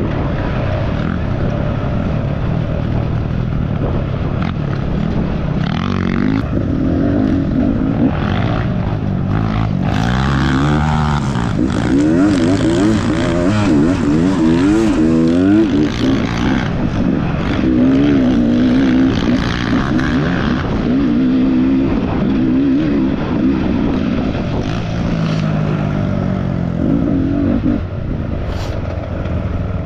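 Dirt bike engine revving up and down repeatedly as the throttle is worked, its pitch wavering quickly.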